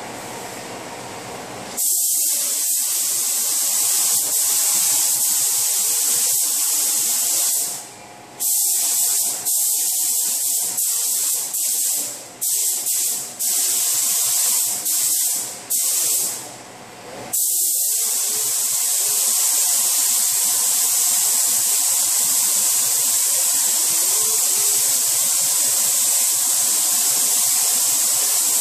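SATA compressed-air paint spray gun hissing as it sprays paint onto car body panels. It starts about two seconds in, cuts out briefly several times between about 8 and 17 seconds in as the trigger is released between passes, then runs in one long continuous pass to the end.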